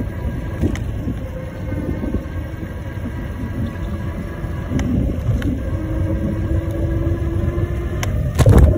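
Electric bike riding along a concrete path: a steady low rumble of wind and road noise on the bike-mounted microphone, with a faint steady whine for a couple of seconds past the middle and a loud thump near the end.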